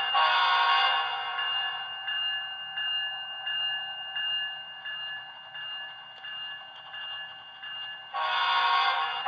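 Sound decoder of an HO scale model Union Pacific 7400 diesel locomotive sounding its multi-chime horn. One loud blast ends about a second in, a quieter steady stretch follows, and a second horn blast starts about eight seconds in.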